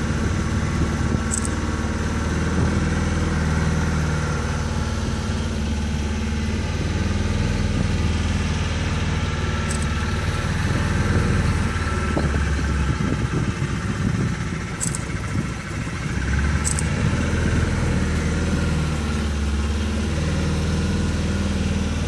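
Small outboard motor on a river boat running steadily at cruising speed, with a low, even hum that eases briefly about two-thirds of the way through. A few short, faint high chirps sound over it.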